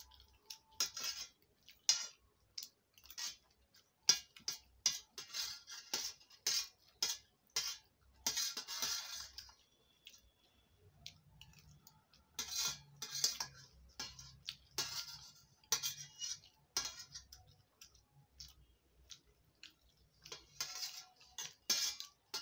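Metal spoon and fork clinking and scraping on a stainless steel plate while pasta is eaten: short, irregular clinks with brief scrapes between them.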